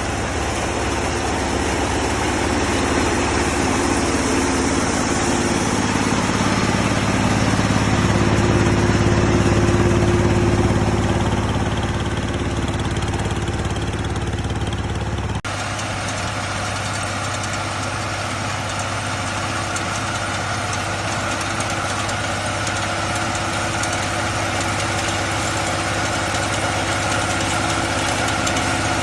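Mini combine harvester's 22 hp diesel engine running steadily. The sound changes abruptly about halfway through to a different, steady engine tone, and swells slightly in loudness before that.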